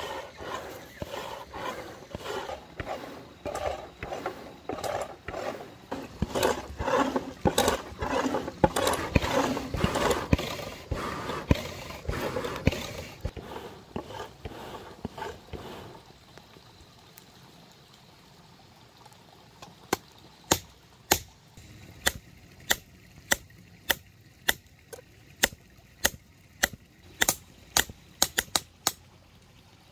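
Hand hammering on iron: a long run of quick, dull knocks, then after a pause a series of sharp, ringing strikes about one and a half a second, coming closer together near the end.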